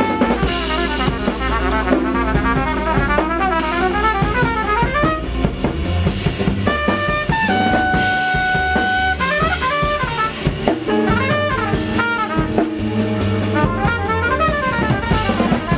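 Jazz trumpet soloing in quick melodic runs over guitar, bass and drum kit playing a 9/8 groove. The trumpet holds one long steady note about halfway through.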